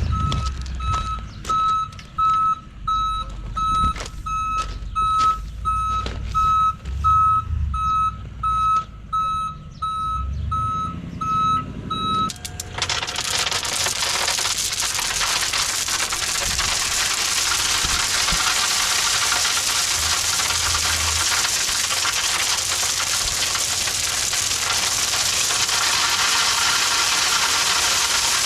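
Mason dump truck's reversing beeper sounding about twice a second over its engine as it backs up. About twelve seconds in, the beeping stops and a steady rushing hiss takes over, the load of gravel sliding out of the dump bed.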